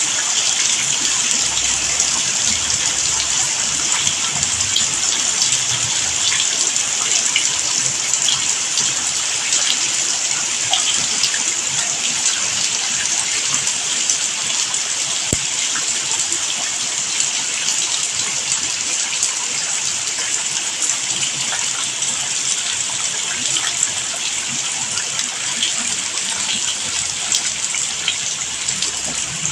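Steady rain, an even unbroken hiss of falling water.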